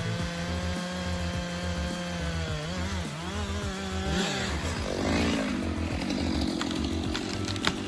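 Stihl MS 462 two-stroke chainsaw running at high revs. About halfway through its pitch wavers and drops as it bites into wood, and it goes on cutting with a rougher, denser sound. A sharp crack near the end.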